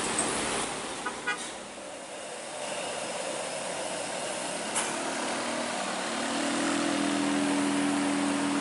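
Diesel coach bus engine running under load as the bus climbs close, growing louder and steadier from about six seconds in, over general traffic noise; a brief horn beep about a second in.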